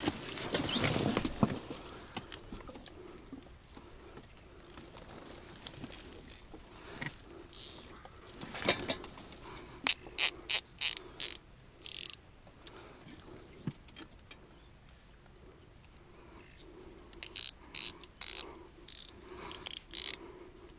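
Short sharp mechanical clicks and rattles in irregular runs, about ten seconds in and again near the end, after a louder rustling noise in the first two seconds.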